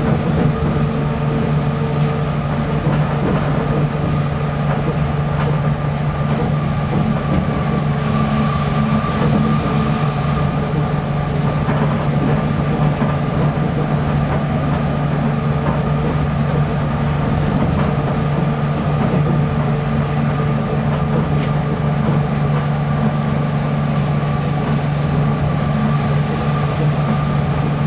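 Nippori-Toneri Liner car, a rubber-tyred automated guideway train, running at a steady speed along its elevated concrete guideway, heard from inside the car: a steady low drone with a fainter whine held level above it.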